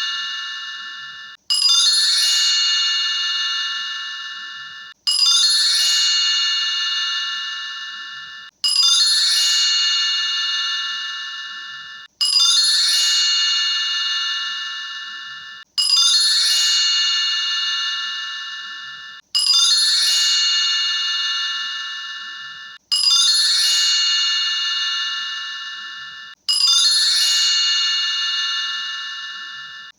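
A bright, bell-like chime struck over and over, about every three and a half seconds. Each ring fades, then cuts off suddenly just before the next strike, like a sound clip played on a loop.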